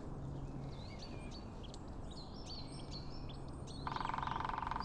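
Small songbirds chirping and calling in short, sliding notes over a faint steady low hum. About four seconds in, a loud, rapid pulsing tone starts.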